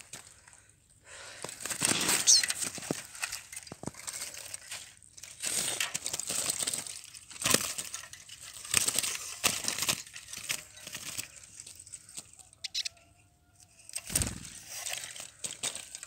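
Small birds fluttering and scrabbling in a wooden cage with wire bars, heard as irregular bursts of rustling and crunching, with one brief high chirp about two seconds in.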